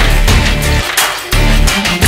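Energetic action-trailer background music with a heavy bass and regular drum hits. The bass drops out briefly about a second in.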